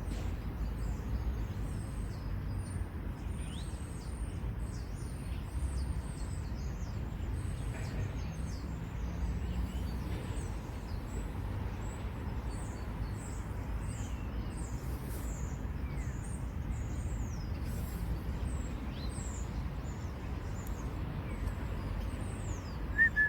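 Small birds calling: many thin, high, short falling notes repeated throughout, over a steady low rumble. A louder short call near the end.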